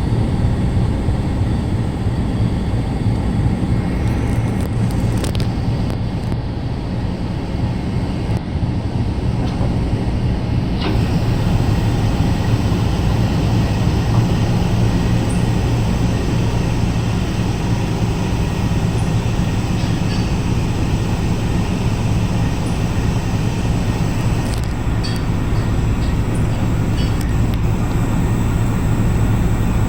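Ferry's engines droning steadily under way, a constant low hum over a wash of wind and water noise, with a few faint clicks.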